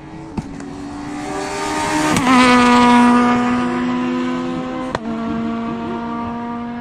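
Rally car racing past at speed: its engine grows loud as it closes in, drops in pitch as it passes about two seconds in, then carries on steadily and fades as it pulls away. A single sharp crack about five seconds in.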